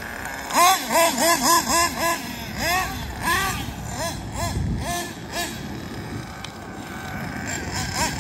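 Nitro glow engine of a Kyosho Inferno NEO ST 3.0 RC truggy being blipped on the throttle: quick rises and falls in revs, about three a second at first. The blips space out and stop about five seconds in, and the engine runs on more evenly at lower revs.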